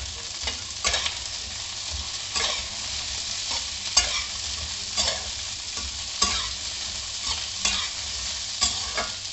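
Cauliflower stems sizzling in a little oil in a metal kadai, under a steady frying hiss. A metal spatula scrapes and clinks against the pan about once a second as they are stirred and sautéed.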